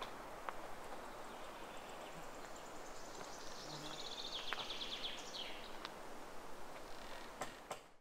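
Countryside ambience with birds singing over a steady outdoor hiss: a fast, high trilled song runs through the middle, with a few faint clicks. The sound fades out at the very end.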